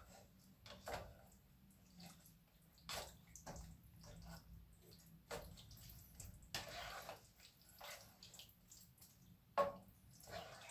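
Meat mixture in a small pan on the stove, simmering hard to boil off excess water: faint, irregular bubbling pops and splutters.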